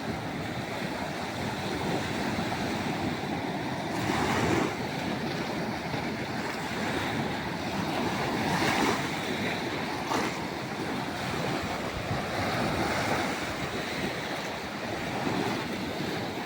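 Sea surf: a steady rush of waves, swelling louder as waves break a few times, with wind buffeting the microphone.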